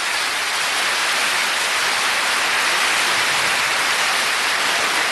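A large audience applauding in an auditorium: dense, steady clapping from many hands.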